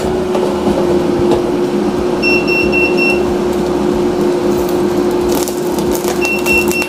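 Air fryer fan running with a steady hum while the fryer gives runs of short high beeps, about two seconds in and again near the end: the signal that its cooking timer has finished.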